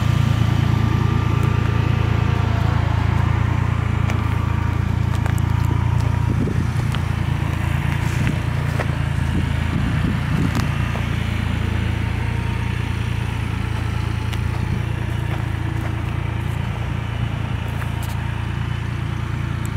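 Tractor engine running steadily with a low hum, slowly growing fainter.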